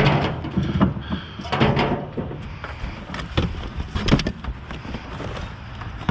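Used car parts (distributors, coils, pumps) being rummaged through by hand, clanking and rattling against each other in irregular knocks.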